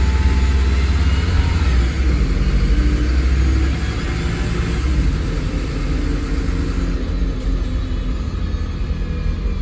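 MAN 16.240 city bus with a six-cylinder diesel and Voith automatic gearbox, heard from inside the rear of the cabin while under way. There is a heavy low rumble with the revs rising twice in the first few seconds, then it eases and runs more quietly.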